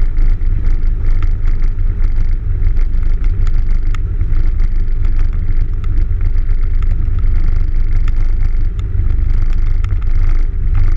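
Cessna 172's four-cylinder piston engine and propeller running steadily at low power, heard from inside the cabin as a loud low drone. Frequent light clicks and rattles sound over it throughout.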